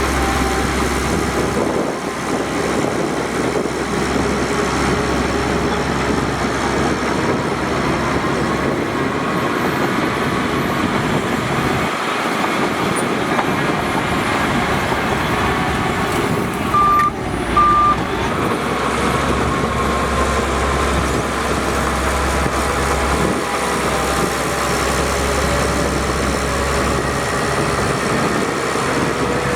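Heavy diesel earthmoving machinery, most likely a bulldozer, running steadily at work. A little past halfway there are two short high beeps.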